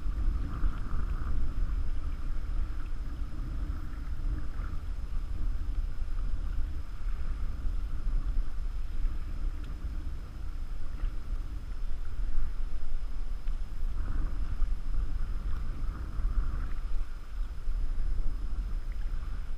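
Wind buffeting the camera microphone with a heavy, steady low rumble, over water splashing and slapping against a canoe's hull as it is paddled through choppy lake water.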